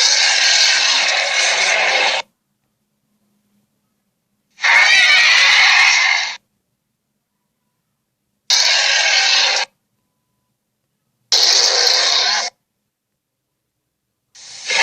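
Creature sound effects for a fictional Skunkosaurus: a run of separate harsh animal-like calls, each one to two seconds long, cut apart by dead silence. One call is trailing off at the start, three more follow evenly spaced, and another begins right at the end.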